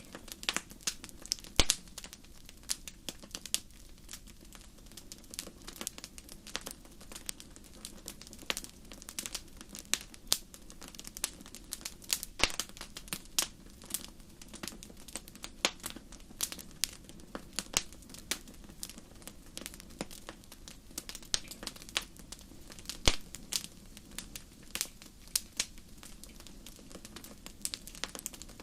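Wood fire burning in a fireplace, crackling with irregular sharp pops and snaps, a few louder ones standing out, over a soft steady rush of flame.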